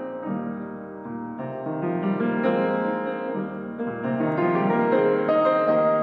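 Background piano music, an arranged piece with a melody over chords, swelling louder and climbing higher through the second half.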